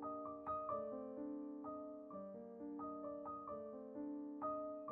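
Background piano music, with notes and chords struck one after another and fading.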